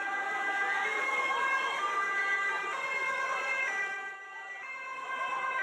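Two-tone emergency vehicle siren, its pitch switching between high and low about once a second.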